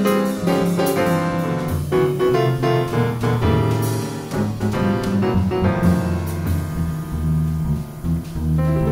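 Background music: piano playing over a bass line.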